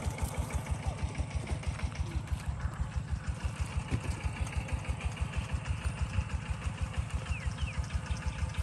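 Small engine idling steadily, an even chug of about seven beats a second.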